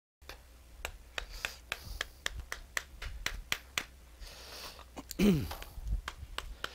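Sharp clicks, about four a second, as a screwdriver works the housing screws of a small gear pump. A short scrape about four and a half seconds in and a brief falling squeak about five seconds in come as the pump housing is worked apart.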